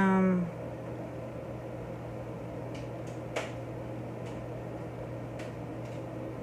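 Steady low hum of room tone. It opens with the end of a woman's drawn-out, level-pitched 'mmm', which fades out about half a second in, and there is a faint click about three and a half seconds in.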